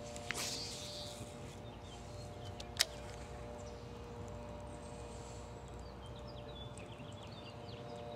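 Quiet lakeside ambience: faint songbird chirps, mostly in the second half, over a steady low hum. A brief hiss comes near the start, and one sharp click about three seconds in.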